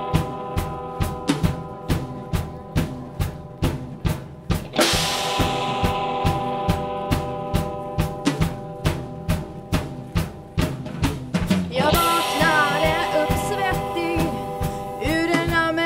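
Live rock band playing a song's intro: a steady drum-kit beat of snare and bass drum under held keyboard and guitar chords. Cymbal crashes come about five seconds in and again about twelve seconds in, where a wavering melodic line enters.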